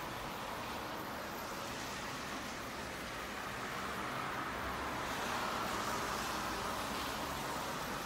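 Road traffic: a steady hiss of tyres on the road, growing louder past the middle as a car passes, then easing.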